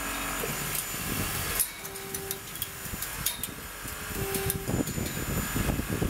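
Power torque wrench running on a high-strength friction grip bolt during second-stage tightening: a steady machine hum broken by a few sharp clicks, turning into an irregular low rattle toward the end.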